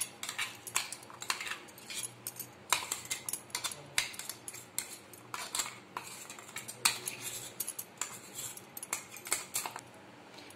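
Steel spoon clinking and scraping against bowls as ground spice paste is scooped into ground chana dal batter and mixed in: irregular clinks and scrapes, a few of them sharper knocks.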